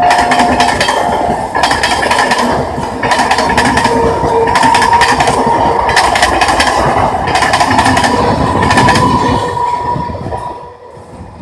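Indian Railways electric local train running on the track, its wheels clacking over rail joints over a steady whine. The sound fades away near the end.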